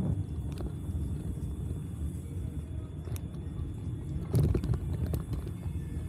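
Low, uneven rumble of riding a bicycle along a city street: wind and tyre noise, with a few short clicks and rattles.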